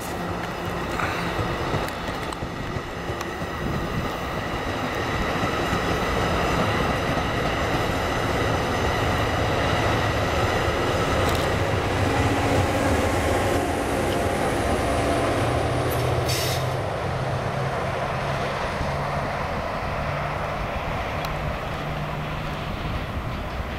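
NJ Transit double-deck MultiLevel coaches rolling past, with wheels rumbling on the rails and a thin steady squeal. In the second half a low steady engine drone builds as the ALP-45DP dual-mode locomotive pushing at the rear draws near.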